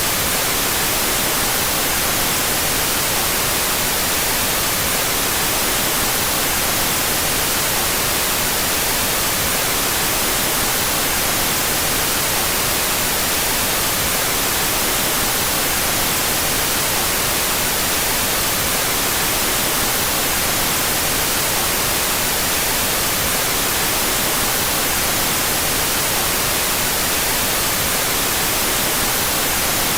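Out-of-phase white noise: a steady, even hiss, brightest in the highs, with no change in level.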